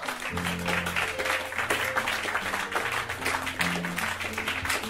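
Audience applauding with music playing underneath; the clapping starts suddenly and the low music notes come in a moment later.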